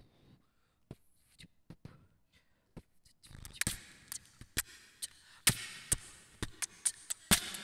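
Sharp clicks and knocks, sparse for the first three seconds, then coming more often over a steady hiss from about three seconds in.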